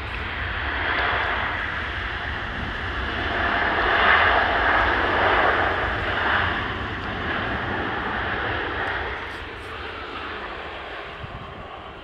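An airliner passing the runway edge, its engine noise swelling to a peak a few seconds in and then fading steadily away.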